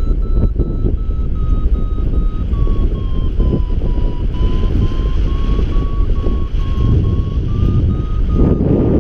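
Paragliding variometer beeping in quick repeated tones over loud wind rush on the helmet or riser camera microphone; the beep pitch dips slightly about halfway through and climbs again near the end, the vario's signal of the climb rate easing and then strengthening in lift.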